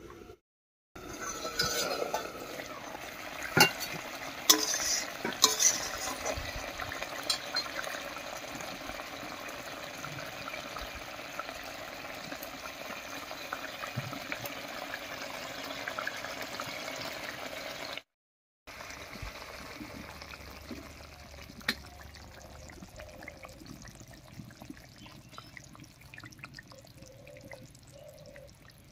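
Pabda fish curry in mustard sauce bubbling and sizzling in a wok, with a few sharp knocks in the first several seconds. After a brief break just past halfway, the simmer goes on more quietly.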